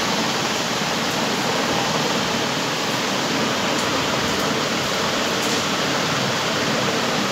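Steady, even rushing noise, with a few faint ticks now and then.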